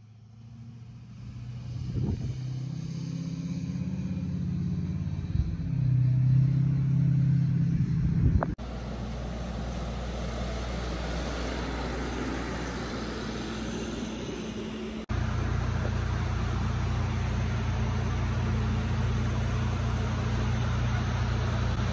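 A pickup truck towing a tractor on a flatbed trailer drives past, its engine rumble growing louder over several seconds. After a cut, a trailer-mounted engine-generator runs with a steady drone, and about two thirds of the way in a second cut brings a louder steady low hum.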